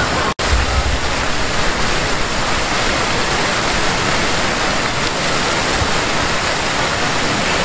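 Steady rushing and splashing of a two-tiered fountain's many water jets falling into its basin. The sound drops out for an instant near the start.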